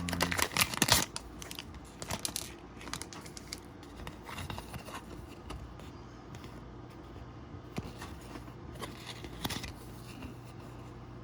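Plastic packaging and small parts being handled: a dense burst of crinkling and clicking in the first second or so, then sparser rustles and light clicks.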